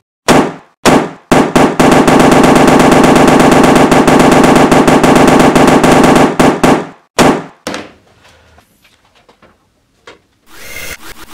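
Power drill boring holes through the sheet-steel panel of a metal toolbox, the bit chattering loudly against the steel. It runs in short bursts, then one long run of about four seconds, then more short bursts. Near the end it starts again, fainter and steady, with a rapid pulsing.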